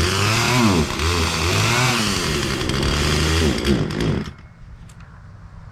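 Poulan two-stroke chainsaw running and revving up and down over and over, then falling away sharply about four seconds in.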